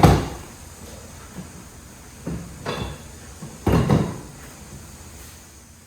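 Household items being handled and set down: three separate thuds and knocks, about one and a half to two seconds apart.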